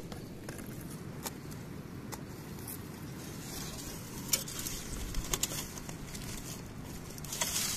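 Knife cutting through a foil-baked fish, with light crackling and sharp clicks and taps against the wooden board, a few louder ones about midway and near the end, over steady low background noise.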